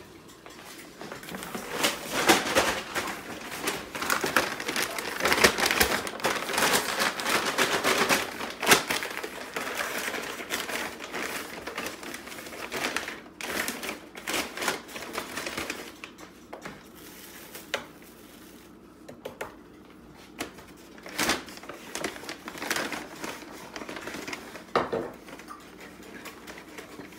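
Chicken frying in an electric deep fryer, crackling irregularly and densely for the first half, then more sparsely with scattered louder pops. Near the end a brown paper bag rustles as it is handled.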